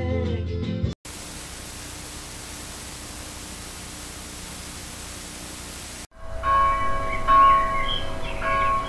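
Music cuts off abruptly about a second in and gives way to a steady hiss of television static for about five seconds. Then sustained bell-like musical tones come in, with a few higher gliding notes.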